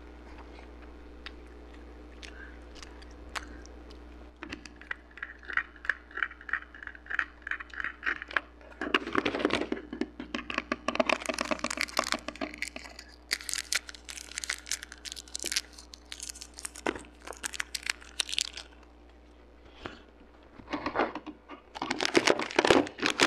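Twix Cookie Dough bars being chewed: crunchy, crackling chewing that starts a few seconds in, comes thick and fast through the middle, pauses briefly, then picks up again near the end.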